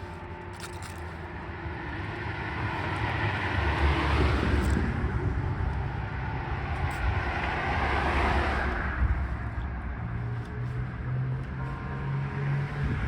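Road traffic: vehicles passing by one after another, the engine and tyre noise swelling and fading twice.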